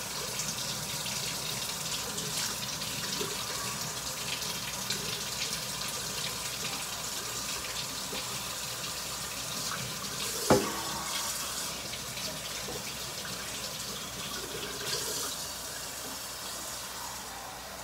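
Kitchen faucet running hot water into a pot, a steady rush of water. A single sharp knock about ten and a half seconds in, and the flow grows quieter near the end.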